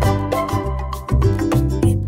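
Background music with a steady, upbeat Latin-style beat: bass notes and percussion.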